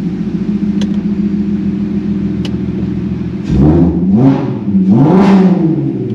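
Toyota GR Yaris three-cylinder turbo engine with a newly fitted aftermarket exhaust idling steadily, then revved three times in quick succession about three and a half seconds in, the last rev held longest, before settling back to idle. Heard from inside the cabin.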